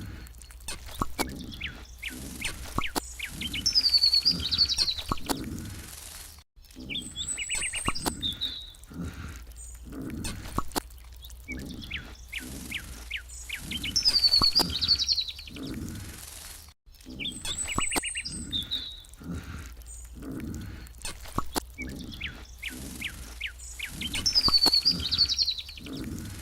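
Looped outdoor ambience of birds chirping and whistling over a low, rhythmic pulsing. The same few-second pattern repeats about every ten seconds, with brief dropouts where the loop restarts.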